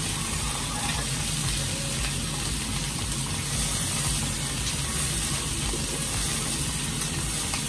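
A whole pomfret frying in hot oil in a pan over a gas burner, a steady sizzle.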